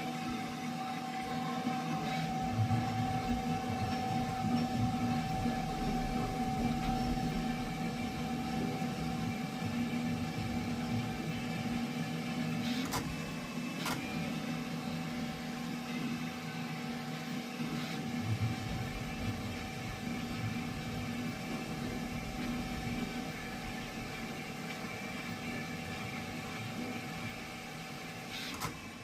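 Bambu Lab H2D 3D printer running: a steady mechanical hum of fans and motors with several held tones. Two sharp clicks come about a second apart midway, and the highest tone stops just before the end.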